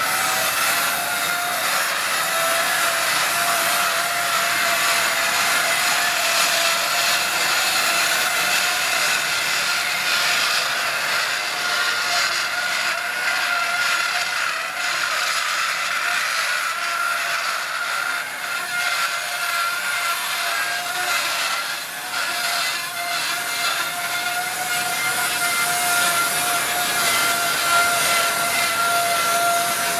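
Steep rail-mounted inclined lift running along its track, a steady whine with a hissing noise over it.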